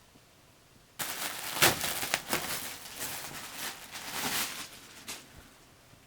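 Packaging being handled and unwrapped, a loud rustling and crinkling with sharp crackles that starts about a second in and dies away about four seconds later.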